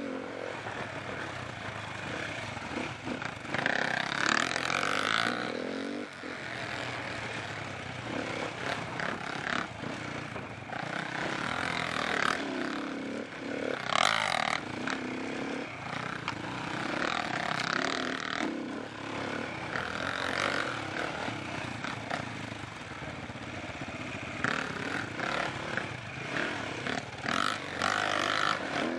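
Single-cylinder engine of an SWM 300 enduro motorcycle, heard from on the bike, with the revs rising and falling as the throttle is worked over rough dirt trail. There are repeated surges of throttle every few seconds.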